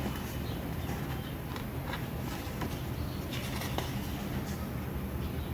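Faint paper rustles and light handling noises from a CD booklet and digipak sleeve, a few soft brushes and ticks over a steady low hum.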